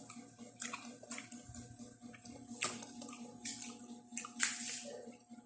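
Close-up eating sounds: wet chewing, with a handful of sharp smacks and squishes of the mouth.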